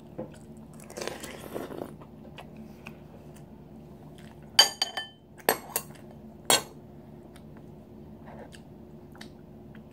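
Metal spoon clinking against a ceramic soup bowl, four sharp ringing clinks in the middle, after a second or so of chewing sounds near the start. A faint steady hum runs underneath.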